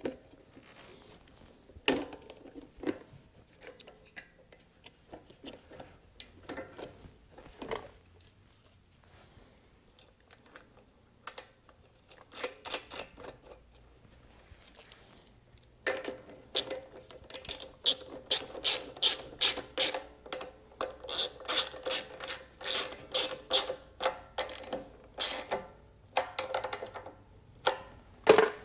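Scattered clicks and knocks of plastic and metal as the air filter housing is fitted back onto the mini bike engine's carburetor. Then, a little past halfway, about ten seconds of rapid ratcheting clicks as the housing's mounting nut is tightened.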